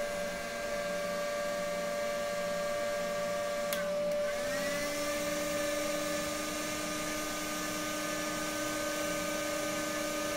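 Electric heat gun's fan motor whining steadily with several held tones. About four seconds in there is a click, the upper tones bend, and a lower hum rises in and holds.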